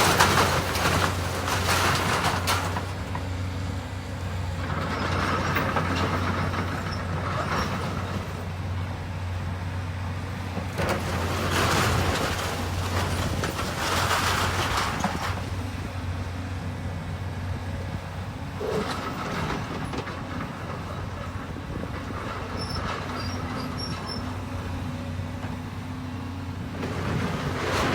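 Heavy demolition equipment running with a steady low engine drone, with louder bursts of noise every few seconds as it works.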